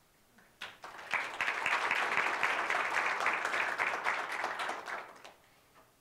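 Audience applauding: many hands clapping together, starting about half a second in, building quickly and fading out about a second before the end.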